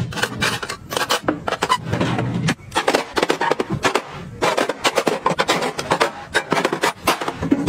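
Rapid clicks, taps and scrapes of hard plastic and metal: beauty tools such as an eyelash curler are set into a clear acrylic organizer, and acrylic divider panels are slotted into a plastic trolley shelf. Near the end a hand rubs across the shelf surface.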